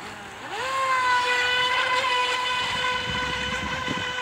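FT011 RC racing boat's 2400 kV brushless motor spooling up under throttle, its whine rising quickly to a steady high pitch and holding there as the boat runs at speed.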